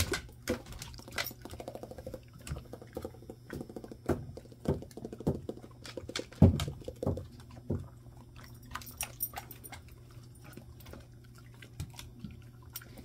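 A West Highland white terrier and a black dog taking bits of pork rib from a hand and eating them: irregular short clicks, smacks and knocks, the loudest about six and a half seconds in.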